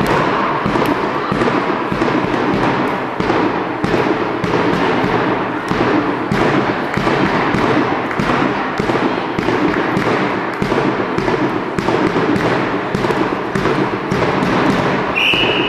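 A steady beat of thumps, about two a second, runs over a din of voices in a sports hall during a handball match. Near the end there is one short, steady referee's whistle blast.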